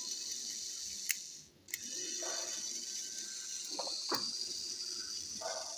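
Battery-powered Plarail toy train motor chassis running in the hand, its small motor and plastic gears whirring steadily with the wheels spinning freely. It cuts out briefly about a second and a half in, with a click as it stops and another as it starts running again.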